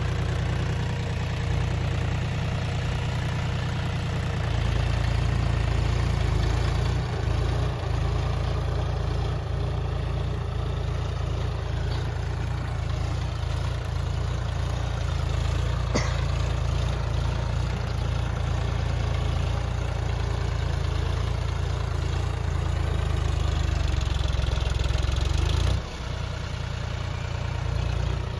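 A John Deere utility tractor's diesel engine running steadily under load as it pulls a disc harrow through tilled soil, with a brief dip in loudness near the end.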